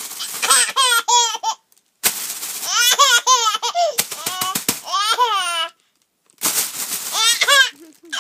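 A baby laughing hard in three fits of rapid, high-pitched giggles, with short pauses between, over the rustle and crinkle of plastic being handled.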